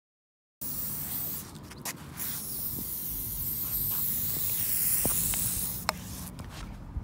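Aerosol spray-paint can spraying in one long hiss that wavers slightly. It starts about half a second in and stops about six seconds in, with a few faint clicks.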